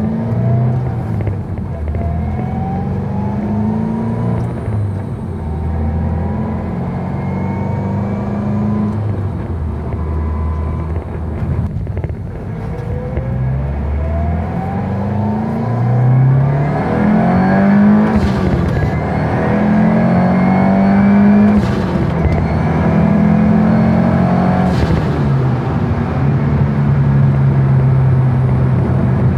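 2022 Subaru WRX's turbocharged flat-four with a catted turboback exhaust, accelerating through the gears: its pitch climbs several times and drops back at each shift. It is loudest about two-thirds of the way through.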